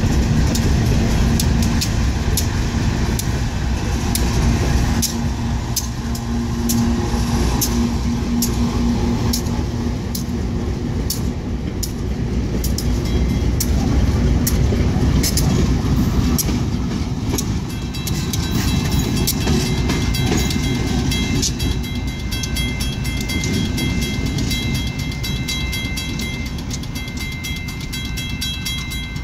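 Loaded coal train passing close by: a steady heavy rumble thick with rapid clicking of steel wheels over the rails. It grows loudest about halfway through as a Union Pacific diesel locomotive in the middle of the train rolls past. From a little past halfway, a high pulsing ringing joins in.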